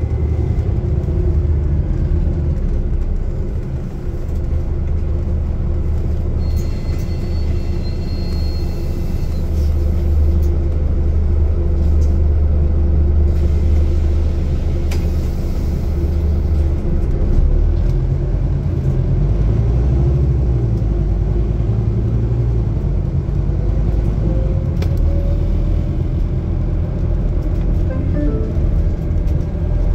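Scania GN 18 articulated city bus driving, heard from inside the passenger cabin: a steady low engine and drivetrain rumble with road noise.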